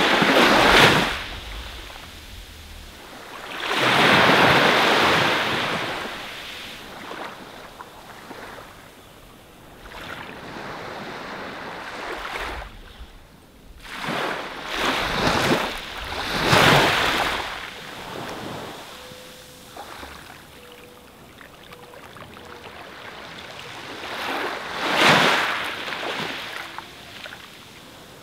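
Small waves breaking and washing up a sandy beach, the surf swelling and fading in surges every few seconds, with the biggest washes near the start, about four seconds in, around fifteen to seventeen seconds in, and about twenty-five seconds in.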